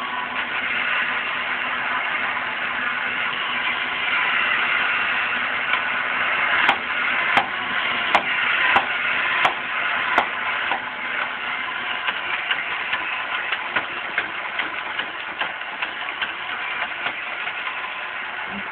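Battery-operated tin bartender toy running its routine: a steady whir of its small motor and gears, with a run of about seven sharp clicks from the moving arm mechanism partway through.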